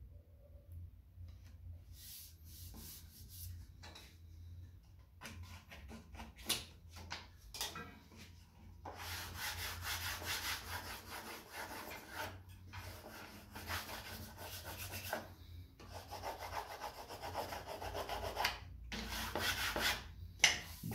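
A small wooden block rubbed hard back and forth over edge banding on the side of a wooden box, pressing the band onto its contact glue. It is a scratchy rubbing that starts faintly a few seconds in and runs in strokes with short pauses.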